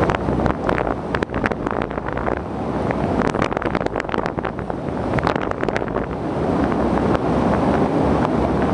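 Wind rushing over the microphone during a paraglider flight, a steady buffeting roar with many crackling gusts, thickest in the middle.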